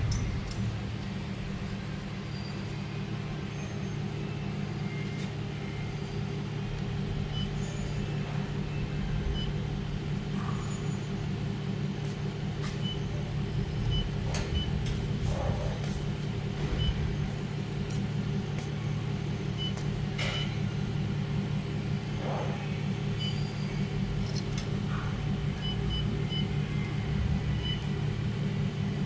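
Steady low hum of a running 1500 W handheld laser welding machine with its built-in water chiller and cooling fans. Short high beeps sound now and then as the wire feeder's touchscreen keys are tapped, along with a few faint clicks.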